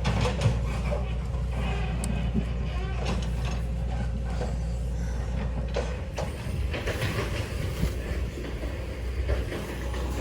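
Backhoe's diesel engine running under load, with irregular clanks and knocks from the bucket working rocks; the engine's low hum shifts about six seconds in.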